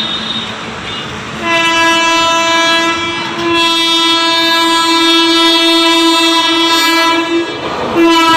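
Electric locomotive of a fast passenger train approaching through a station, sounding its horn: a short blast, then a longer held one, then another blast near the end that drops in pitch as the locomotive passes, over the rumble of the train.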